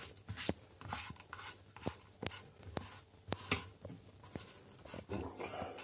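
Spatula scraping and knocking in a frying pan of fried onions: irregular light scrapes and short clicks.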